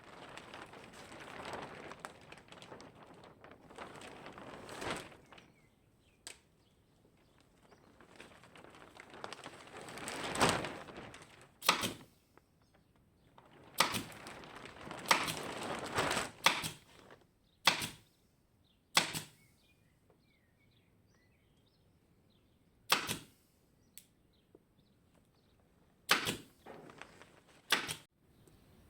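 Pneumatic upholstery stapler firing staples one at a time, about eight sharp shots spaced irregularly. Between the shots there are longer stretches of rustling handling noise.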